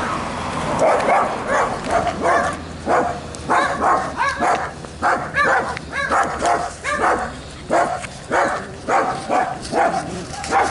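Small dog barking over and over in short, high-pitched barks, about two a second.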